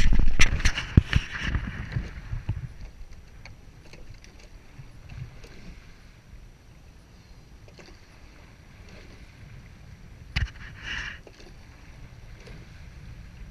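Sweep-rowing eight under way: oars knocking in their oarlocks and blades splashing into the water, loud and busy over the first two seconds as the crew starts rowing, then fainter knocks about every two and a half seconds, one per stroke.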